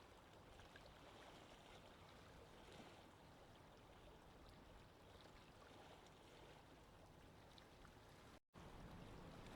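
Faint, steady water noise. It cuts out for an instant about eight and a half seconds in, then returns with a slightly louder low rumble.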